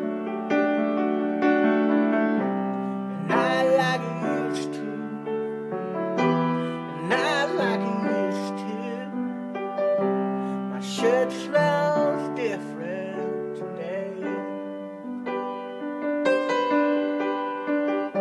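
Piano playing slow, held chords and single notes, the notes changing about once a second. Three times a short wavering tone rises and falls over it.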